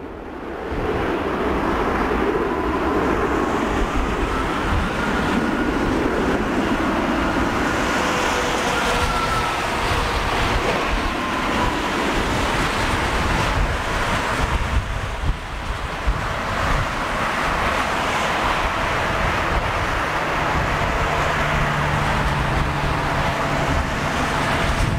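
Boeing 737-800's CFM56-7B turbofan engines at takeoff thrust during the takeoff roll and climb-out: a loud, steady roar with a faint whine that slowly rises and falls in pitch, and a low hum joining near the end.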